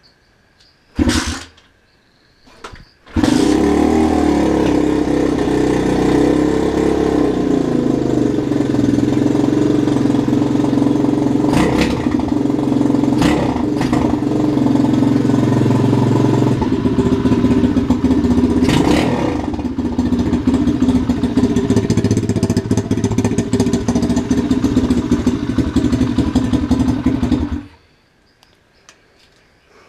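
Small single-cylinder dirt bike engine started after a brief first attempt. It catches about three seconds in, idles with several sharp throttle blips, and is shut off suddenly near the end. It runs a little unevenly, which the owner reckons could do with some tuning.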